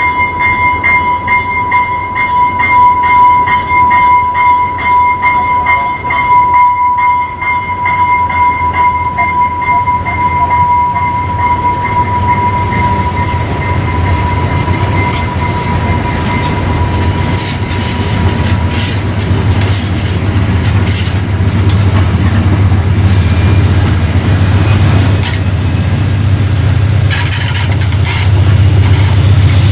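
Amtrak Cascades passenger train led by a GE P42DC diesel locomotive, pulling in: a steady high ringing tone fades out over the first dozen seconds, then the low engine rumble grows, with high brake squeals coming and going through the second half.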